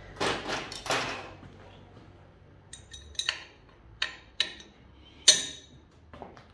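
Scattered sharp metallic clinks and knocks from bolts, small metal parts and hand tools being handled while fitting an engine mount; the loudest clink comes a little past five seconds in.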